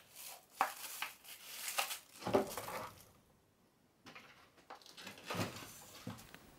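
Paint tins, a paintbrush and a plastic bucket being picked up and knocked together inside a small metal shed: a string of light clunks and rustles, a pause of about a second near the middle, then fainter handling.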